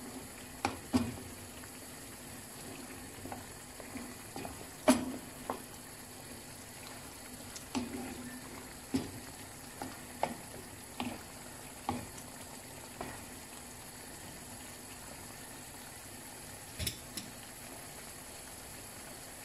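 Pork hock braise simmering in a nonstick pan with a steady bubbling hiss. A utensil stirring the meat knocks against the pan about a dozen times at irregular intervals, loudest about five seconds in.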